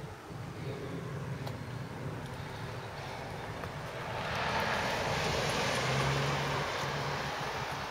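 A vehicle going by, its noise swelling from about four seconds in and easing off slightly near the end.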